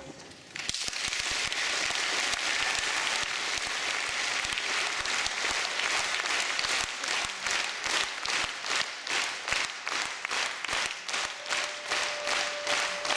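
Concert audience applauding, starting about half a second in; in the second half the applause settles into clapping in unison, roughly two to three claps a second. A single steady held note joins in near the end.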